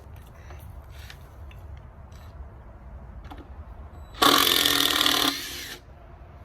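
A short burst of a handheld power tool, about a second and a half long, with a few light knocks and handling sounds before it.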